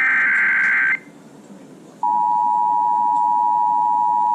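Weather-radio Emergency Alert System header: the last of three one-second digital data bursts (SAME code), a harsh buzzing screech, ends about a second in; after a short gap of static the steady 1050 Hz NOAA Weather Radio warning alarm tone starts about two seconds in and holds, signalling a new warning about to be read.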